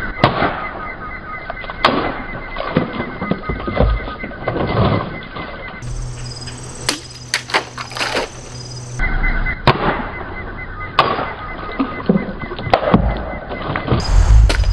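A large folding knife slicing through plastic bottles: a series of sharp cracks and smacks as the blade hits and cuts through, several cuts in quick pairs. A steady high chirping runs behind them.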